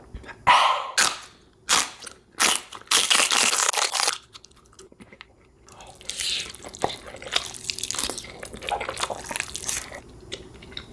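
A person biting and chewing food close to the microphone, mukbang style. There are loud crunching bites in the first few seconds, then softer, wetter chewing.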